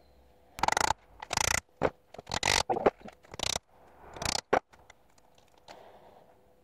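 Hammer work on steel pins set through a ram's horn knife handle on a steel block: a quick, irregular run of scraping strokes and sharp metal taps, stopping after about four and a half seconds.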